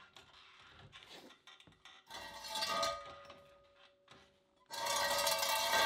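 Steel axle stands being pulled out from under the car, scraping and clanking against the concrete floor and the jack with a ringing metallic sound, twice: once about two seconds in and again, longer and louder, near the end.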